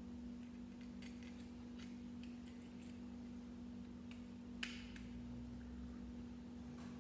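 Plastic LEGO pieces being handled and pressed together: scattered light clicks, with one sharper click about two-thirds of the way through, over a steady low hum.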